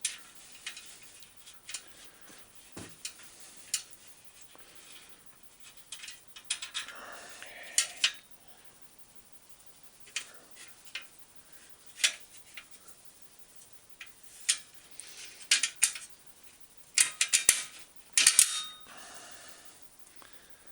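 Scattered metallic clicks and clinks of hand tools and bolts as fender stay bolts are fitted and tightened on a bicycle, coming thicker near the end.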